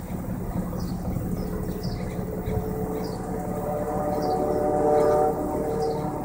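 Exhaust of a BMW 328is's 2.8-litre inline-six, heard at the twin tips of an M3 rear muffler fed by a 328 midpipe. The engine runs steadily, then its note swells and gets louder toward about five seconds in before dropping back abruptly.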